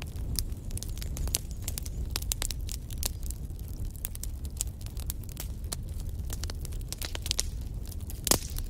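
Wood fire crackling in a fireplace: irregular sharp pops and snaps over a steady low rumble of the flames, with one louder pop near the end.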